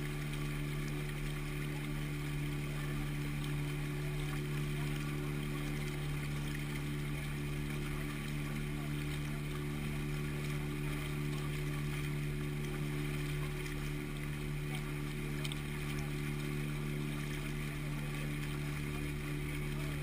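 Motorboat engine running steadily at cruising speed, a constant hum, with water rushing and splashing in the wake along the hull.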